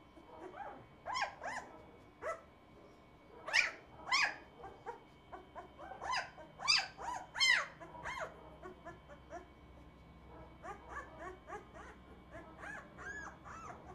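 Young German shepherd puppies squeaking and yelping in short, high cries. The cries come in loud clusters in the first half and turn into softer, quicker squeaks near the end.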